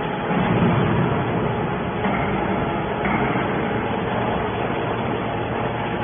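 Hydraulic scrap metal baler's power unit running, a steady mechanical hum and noise from its pump and motor.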